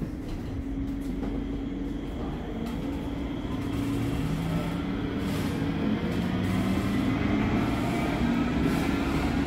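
Cologne Stadtbahn light-rail car in motion, heard from inside the car: a steady low rumble with the whine of the electric traction motors. The whine rises slowly in pitch and the sound grows louder as the car picks up speed after leaving a stop.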